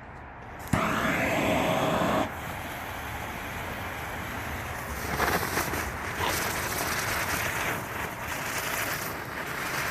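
Hula hoop spinner firework going off: a sudden loud hiss about a second in that cuts off after about a second and a half, then a steadier hiss that turns rougher and crackly from about halfway through.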